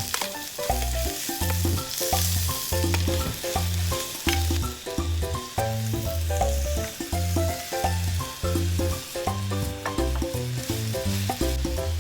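Food sizzling as it fries in a pan, under background music with a steady, repeating bass line.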